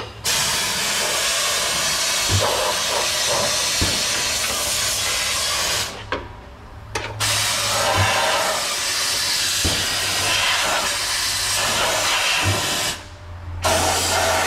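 Compressed-air spray gun with a long wand hissing as it sprays oil undercoating into a pickup's front fender cavity. The spraying comes in three long bursts, with brief pauses about six seconds in and near the end.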